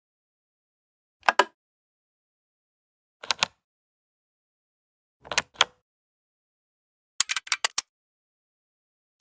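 Mechanical gear clicks: sharp clicks in pairs about every two seconds, then a quick run of about six clicks near the end.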